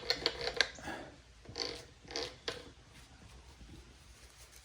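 Small handling sounds of parts and tools being worked on the bench: a quick run of clicks and scrapes in the first second, two brief scrapes about two seconds in, then quiet.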